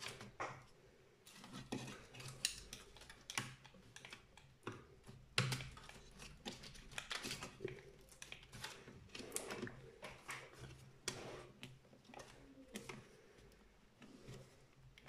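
Irregular series of small sharp clicks and plastic rattles: the snap-fit clips of an ASUS X540L laptop's plastic case popping loose as the case is pried apart.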